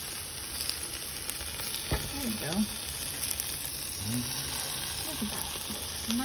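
Steaks sizzling over hot charcoal on the steel grates of a tabletop grill, a steady frying hiss, with a sharp tap of metal tongs about two seconds in.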